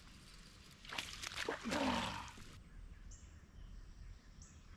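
A fishing rod cast about a second in: line paying out off the reel with a whirring whine that falls in pitch as the spool slows, lasting about a second and a half.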